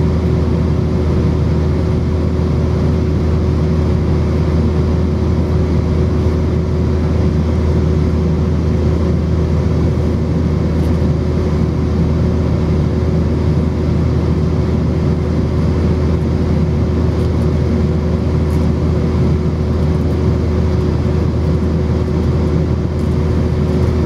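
Steady cabin noise of an Airbus airliner in flight, heard from a window seat by the wing: a constant, loud low rumble of jet engines and airflow with a steady hum running through it.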